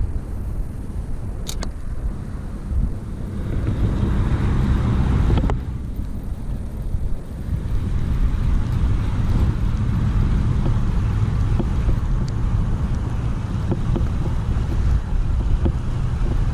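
Strong wind buffeting the microphone: a steady low rumble that swells and eases, louder from about four seconds in.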